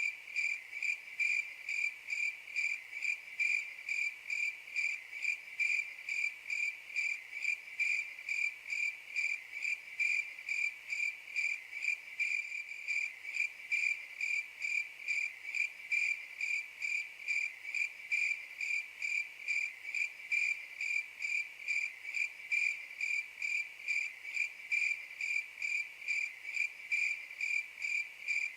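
Cricket chirping steadily: high-pitched, even chirps repeating about twice a second.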